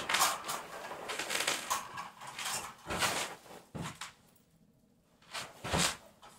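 Irregular rustling and clattering handling noises from someone moving about and handling gear in a small room. They stop for about a second two-thirds of the way through, then come two louder knocks near the end.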